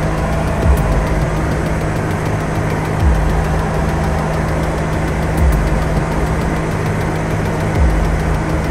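Cessna 172R's four-cylinder Lycoming engine and propeller running steadily in flight, heard inside the cockpit as a steady low hum over dense noise. Soft low thumps recur about every two and a half seconds.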